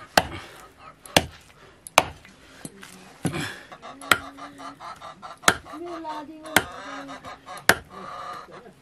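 Heavy knife chops on a chopping board, about one a second, as pork is cut into pieces.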